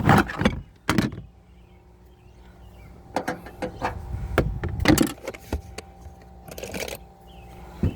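Knocks, clicks and rattling from tools and parts being handled and rummaged through, several separate strikes over about eight seconds, over a faint steady hum.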